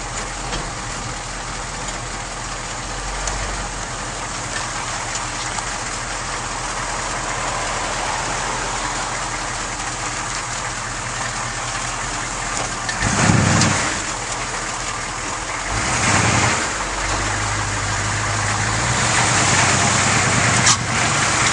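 Chevrolet K5 Blazer's 6.2 L diesel V8 running, with a steady rush of road and cab noise around it. Two louder swells come about 13 and 16 seconds in, and the sound grows steadily louder toward the end.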